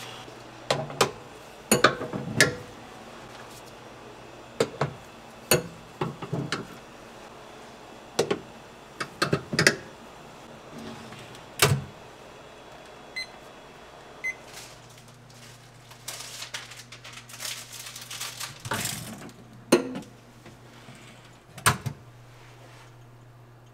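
Kitchen work sounds: scattered sharp knocks and clatters of utensils and equipment, with a steady low appliance hum setting in about halfway through.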